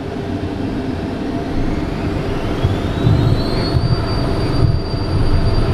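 The CJ3's twin Williams FJ44 turbofan engines spooling up to takeoff power, heard from inside the cockpit. A whine rises in pitch for about the first four seconds and then holds steady, over a rumble that keeps growing.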